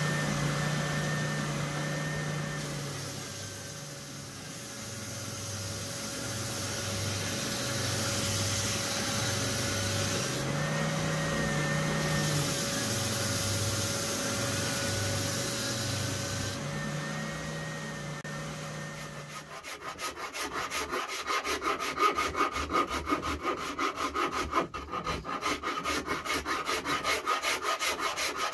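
Triton oscillating spindle sander with a sanding-belt attachment, running with a wooden guitar body pressed against the belt; its motor hum dips and recovers in pitch as the wood is worked. About two-thirds of the way through, this gives way to fast, rhythmic hand-rasp strokes across the wood.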